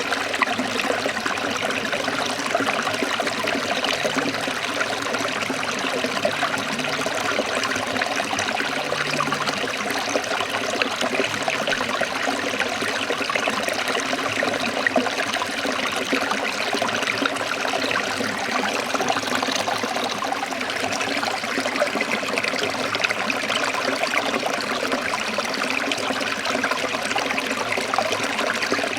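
Forest stream trickling and babbling over rocks, a steady, even rush of running water.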